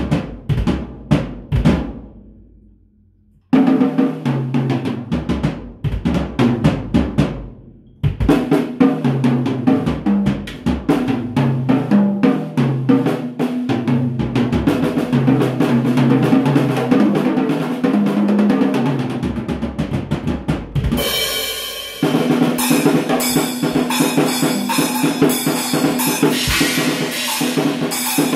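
Acoustic drum kit played with sticks: bass drum, snare, toms and cymbals in fast patterns and fills. The playing stops twice in the first few seconds and the kit rings out, then it runs on without a break, with a heavier cymbal wash from about 22 s.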